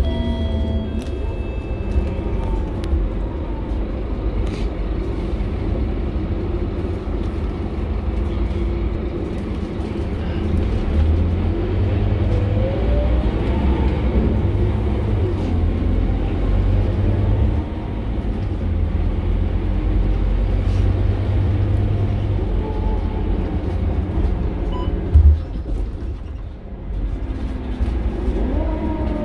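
Scania K230UB bus's five-cylinder diesel engine and drivetrain heard from inside the passenger cabin while the bus drives, a steady low rumble with a whine that rises in pitch as it accelerates around the middle and again near the end. A single thump sounds about 25 seconds in.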